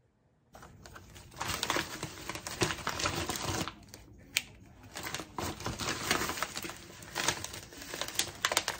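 Plastic food packaging crinkling and rustling as it is handled, with many sharp crackles and a few louder snaps, starting about half a second in.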